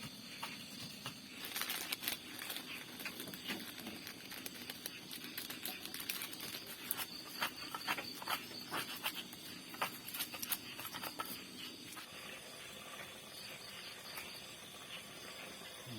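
Irregular sharp clicks and crackles for most of the stretch, easing off near the end, over a faint steady chirr of insects.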